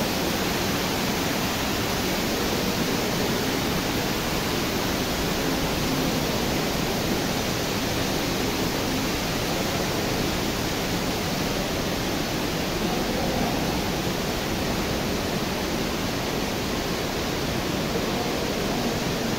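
Steady rush of water from the cave's underground river: an even, unbroken noise with no pauses or changes.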